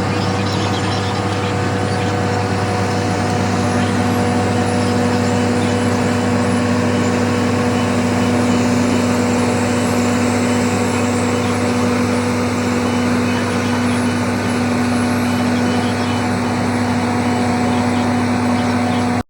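Large diesel engine of heavy mining equipment running steadily at a constant speed, with a steady low hum and no revving.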